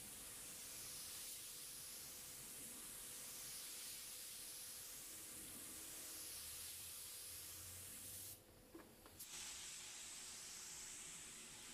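Gravity-feed compressed-air paint spray gun hissing steadily as it lays blue base coat onto a truck hood. About eight seconds in the spray stops for roughly a second, with a small click, then starts again.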